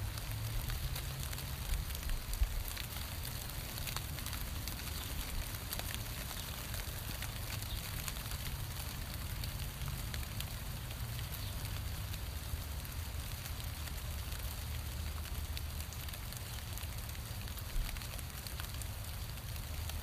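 Steady rain falling on ferns and leaf litter: an even hiss full of separate drop ticks, with a low rumble underneath and a couple of soft knocks about two seconds in and near the end.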